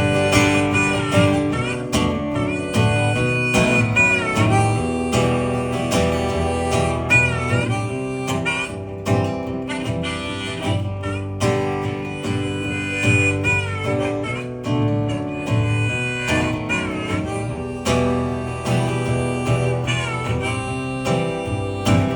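Instrumental song intro on acoustic guitar and harmonica: the guitar strums chords while the harmonica carries the melody with bent, wavering notes.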